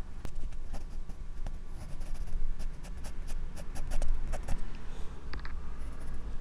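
Pencil strokes scratching and tapping on drawing paper, picked up close by a microphone clipped to the drawing wrist: a run of quick sharp ticks, thickest through the middle, over a steady low rumble.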